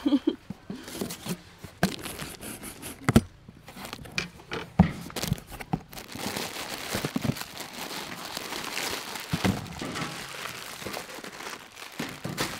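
Cardboard carton being opened, with a few knocks and scrapes of the flaps, then plastic instant-noodle packets crinkling steadily as they are handled and piled up, from about six seconds in.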